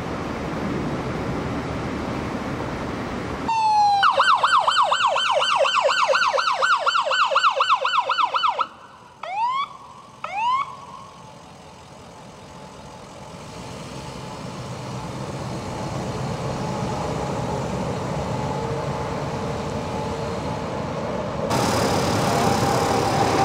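Emergency vehicle siren in a fast yelp, about four sweeps a second, for roughly five seconds. Two short rising whoops follow, then a steady low rumble of engine and traffic.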